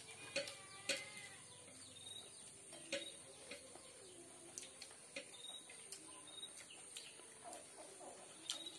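Faint close-up eating sounds: chewing and wet mouth clicks as a mouthful of rice and boiled chicken is eaten, with short clicks every second or so. Faint bird chirps sound in the background.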